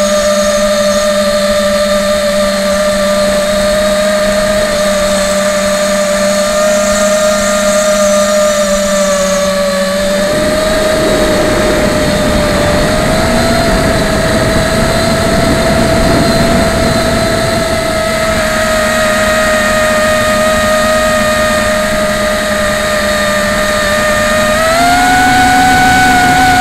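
Martian 2 quadcopter's brushless motors and propellers whining steadily, heard from the action camera on board. A low rushing noise joins about ten seconds in, and the whine rises in pitch near the end as the throttle goes up.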